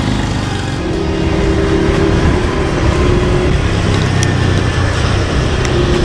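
Motor vehicle engine running steadily while driving, its pitch rising and falling slightly with speed.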